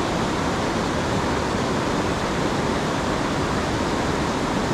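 Steady rushing of fast-flowing creek water, swollen by heavy rain, as an even hiss with no breaks.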